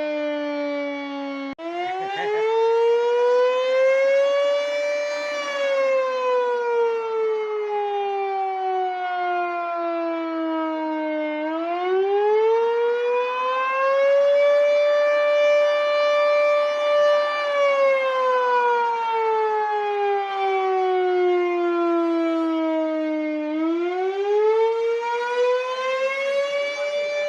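Air raid siren sounding a slow wail: its pitch climbs over about three seconds, holds, then sinks over about six seconds, going round twice. It is a test run of a newly installed siren.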